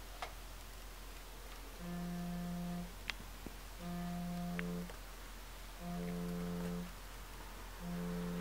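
Smartphone signalling an incoming call with a low buzzing tone, about one second on and one second off, repeating four times from about two seconds in.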